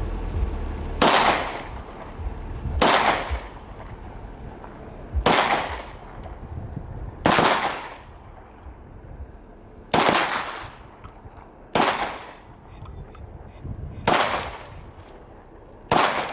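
Eight single gunshots from an AR-style semi-automatic firearm, fired one at a time about two seconds apart, each shot trailing off in an echo.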